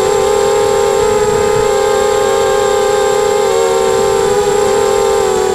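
FPV racing drone's electric motors and propellers whining at a steady pitch that wavers slightly, heard loud and close from the onboard camera.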